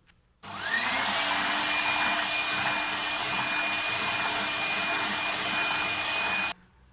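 Electric mixer beating cake batter: the motor spins up with a rising whine about half a second in, runs steadily, then switches off near the end.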